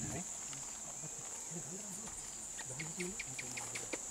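Steady, high-pitched drone of insects in the forest at dusk, with a quick run of short ticks near the end.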